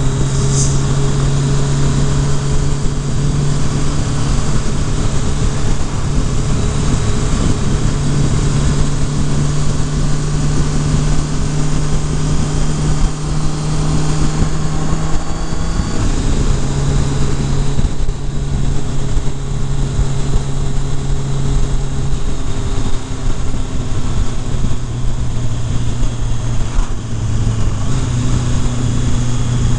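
Kawasaki Concours ZG1000's inline-four engine running while riding at road speed, mixed with wind noise. The engine note changes a few times: about halfway through and twice more in the latter part.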